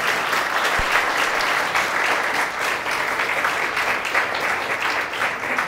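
Audience applauding, a dense steady clapping from a room full of people.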